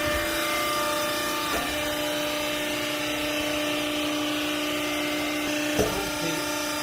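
Vertical clothes baling machine's motor running with a steady hum, with a single knock near the end.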